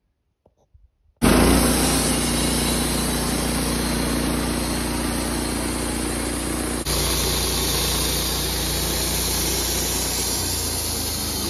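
Wood-Mizer LT15 bandsaw sawmill running with a steady engine note and band-blade noise, starting abruptly about a second in.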